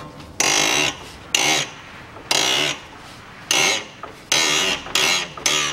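Short bursts of metallic tool noise, about seven in a row at uneven gaps, as the tie rod end is fastened to the front steering knuckle.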